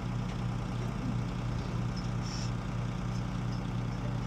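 An engine running steadily, a constant low hum that does not change, with a short high chirp about two seconds in.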